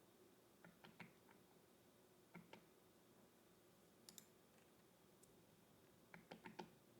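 Faint clicks of computer keyboard keys, in small clusters: a few about a second in, a pair a little after two seconds, another pair near four seconds, and a quick run of four near the end.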